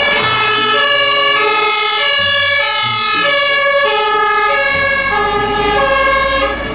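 German fire engine's two-tone siren (Martinshorn) sounding, alternating between a high and a low tone, each held a little over half a second. The truck's engine and tyre noise grows louder in the second half as it drives past.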